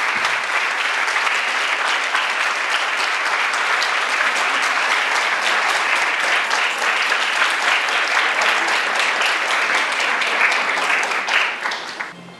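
A large audience applauding, many hands clapping at once at a steady level, fading out near the end.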